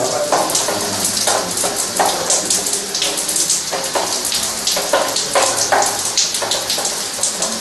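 Water running from a bare pipe and splashing irregularly onto the floor below.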